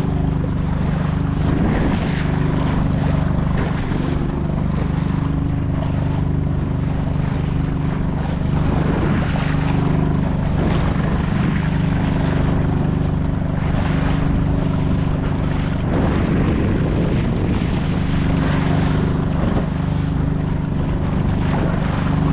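Honda 2.3 HP four-stroke outboard motor running at a steady pitch, pushing a kayak through choppy sea, with waves splashing every few seconds.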